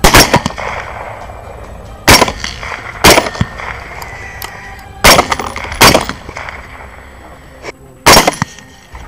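Suppressed rifles firing about six shots in nine seconds, irregularly spaced, each a sharp crack with a short echo: LWRC Six8 rifles with Hornady 120 gr SST loads shooting at running hogs.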